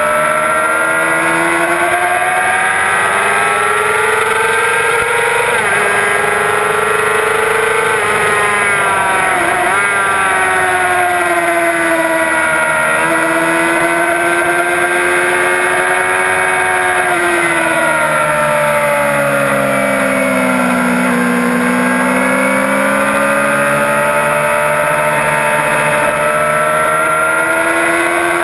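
A 2006 Yamaha R6's 600 cc inline-four engine at full track speed, with its pitch climbing under throttle and dropping back at each upshift. About two-thirds in, the pitch falls away through braking and downshifts, then rises again near the end. Wind rushes over the onboard microphone throughout.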